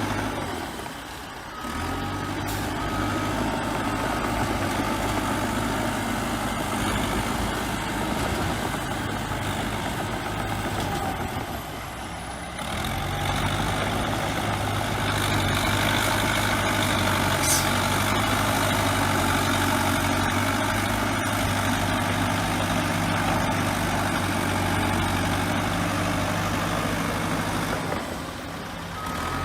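Bulldozer's diesel engine running steadily, growing louder after about 12 seconds, with a reversing alarm beeping a few times near the start and again at the end.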